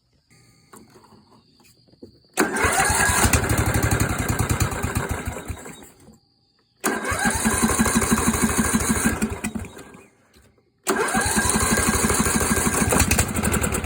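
14 hp Briggs & Stratton engine on a Yard Machines riding tractor being cranked over by its starter in three tries of about three and a half seconds each, with an even rapid pulsing as it turns over. It never catches and runs between the tries, which the owner puts down to no fuel reaching the carburettor.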